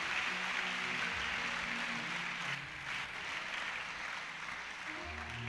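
Church congregation applauding in acclamation: a steady, even patter of clapping, with faint music underneath.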